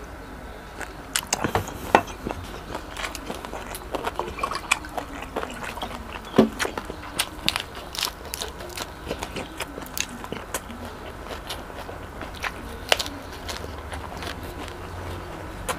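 Close-miked eating of a lettuce-wrapped bite of chicken: irregular crisp crunches and wet mouth clicks and smacks while chewing, with a few louder snaps.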